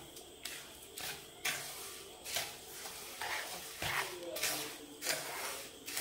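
Wooden spatula stirring and scraping powdered sugar into roasted gram flour in a steel kadhai, in repeated uneven scraping strokes, a little under two a second.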